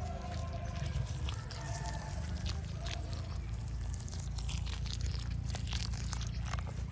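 Water being poured onto the potting soil of potted cauliflower seedlings, with scattered small crackles and spatters.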